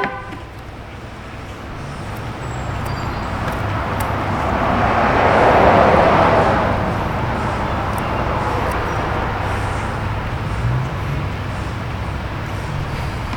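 Road vehicle passing by, its noise swelling to a peak about halfway through and then easing off, over a steady low hum.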